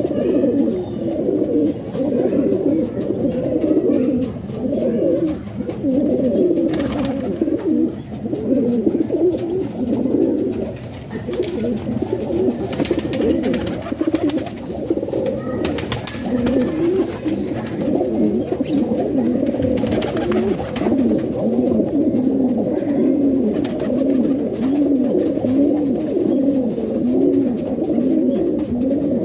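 Domestic pigeons cooing, several birds at once in overlapping, repeated low rolling coos, with a few brief sharp clicks mixed in.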